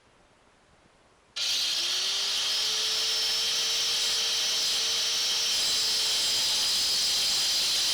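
Cut-off wheel grinding a slot into a broken starter bolt stub in the engine block, so the bolt can be turned out with a flathead screwdriver. It starts suddenly about a second and a half in, with the motor whine rising as it spins up and then a steady high hiss of metal being cut.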